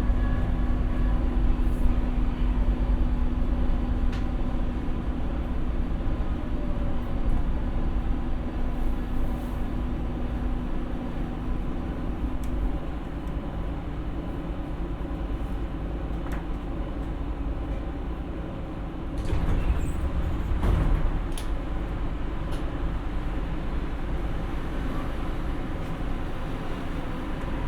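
Onboard running noise of a Siemens P2000 light rail car slowing into a station, with a steady drive tone that stops about twelve seconds in as the noise eases. A few sharp knocks come about two-thirds of the way through.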